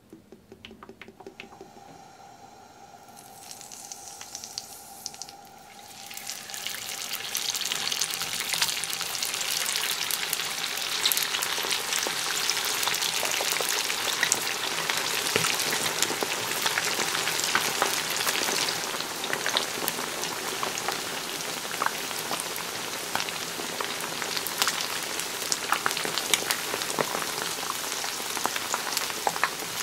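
Oil pouring into a frying pan, fairly quiet with a few faint tones. About six seconds in, potato-starch-coated chicken pieces deep-frying in hot oil take over with a loud, steady, dense crackling sizzle.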